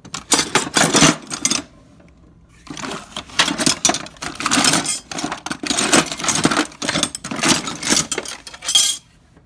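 Metal sockets and wrenches clinking and clattering against each other as a hand rummages through a toolbox tray. A short burst comes first, then a pause of about a second, then several seconds of steady rattling that stops near the end.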